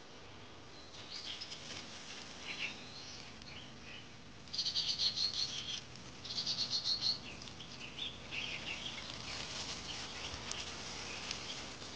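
Wildlife chirping and trilling: short high chirps throughout, with two louder rapid trills a little before and after the middle.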